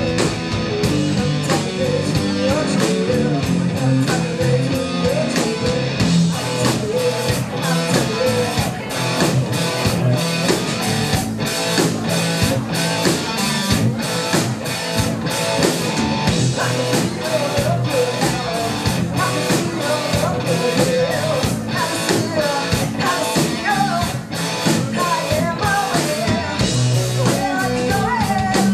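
A hard rock band playing live: electric guitar and a drum kit keeping a steady, driving beat.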